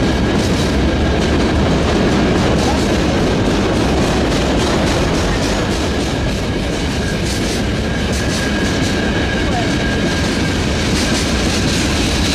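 Open gondola freight wagons rolling steadily past close by: a continuous rumble of steel wheels on the rails with rapid clacking over the rail joints and a faint high steady whine.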